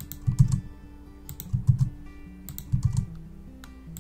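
Computer keyboard keystrokes in three short clusters, about one every second and a quarter, as keyframes are pasted with a keyboard shortcut, over background music.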